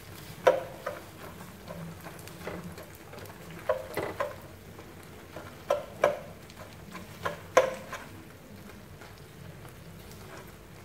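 Tofu skin sheets shallow-frying in oil in a nonstick pan with a faint sizzle, while a metal fork and wooden chopsticks tap and scrape against the pan in a scattering of sharp clicks as the puffed-up sheets are pricked and pressed down.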